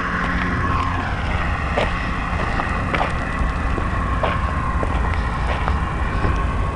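Electric RC airplane's brushless motor and 15-inch propeller running on the ground, its pitch falling in the first second or so and then holding steady, with a few sharp ticks. The propeller is out of balance, which the owner suspects needs balancing or replacing with a wooden prop.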